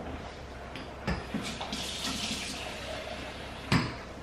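Kitchen mixer tap running cold water into a plastic measuring jug for a couple of seconds, with a knock as the flow starts and a sharper knock near the end.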